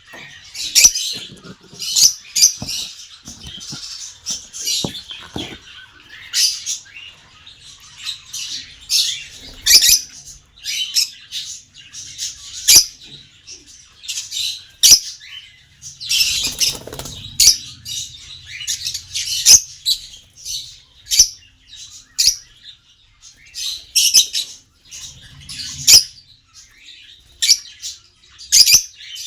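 Small pet parrots chirping and squawking: many short, sharp, high calls at an irregular pace, some loud.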